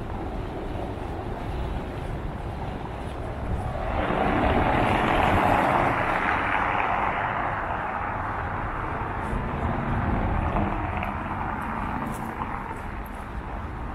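A road vehicle passing on a city street: its tyre and engine noise comes up sharply about four seconds in, peaks, then fades away over several seconds, over a steady low traffic rumble.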